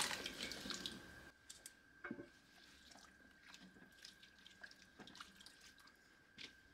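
Diced potatoes tumbling from a metal bowl into a pot of broth with a brief splash, then a wooden spoon stirring the soup in an enamelled Dutch oven, with soft scattered clicks and small liquid sloshes.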